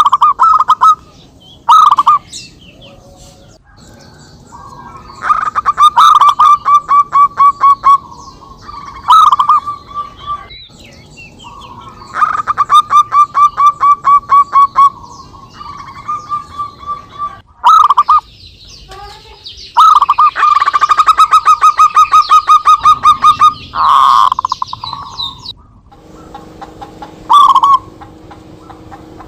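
Zebra doves (perkutut) calling to each other in repeated loud bouts, each a quick run of staccato coos.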